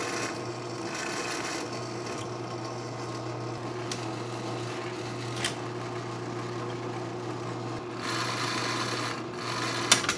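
Benchtop drill press running with a steady motor hum while its bit cuts holes for lag screws through a green-painted metal angle bracket. The cutting grows louder and hissier about eight seconds in, and a couple of sharp clicks come near the end.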